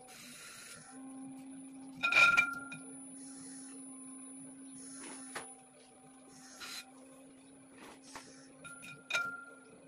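Steady hum of a spinning potter's wheel as wet clay is worked by hand, with short soft rubbing sounds. A sharp ringing metallic clink about two seconds in, the loudest sound, and a smaller one near the end.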